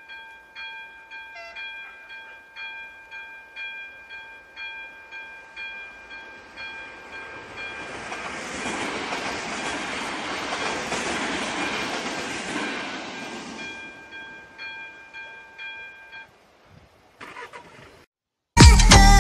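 Electronic warning bell (umíráček) of an AŽD 97 level-crossing signal striking about one and a half times a second, while a RegioPanter electric multiple unit passes over the crossing with a rush of wheels on rail that swells and fades. The bell stops about three-quarters of the way through, and loud music starts at the very end.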